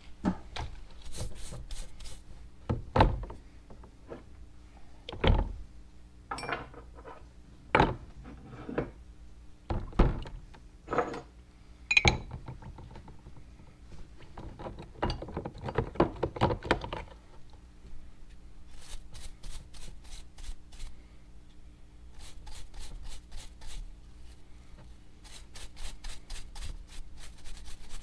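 Hand work on the parts of a vintage meat grinder: a series of knocks and thunks a couple of seconds apart, a quick clatter, then runs of fast, even rubbing strokes.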